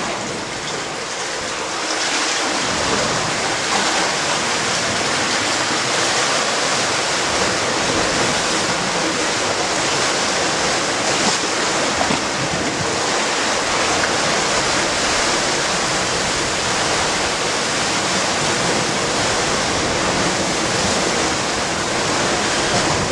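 Seawater sloshing and washing right at the microphone, a steady rushing sound with no let-up.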